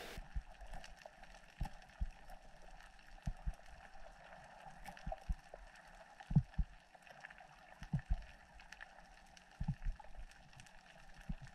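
Underwater ambience picked up by a camera in a waterproof housing on a free-diver swimming over a reef: a faint steady hiss with irregular low, dull thumps and a scatter of faint clicks.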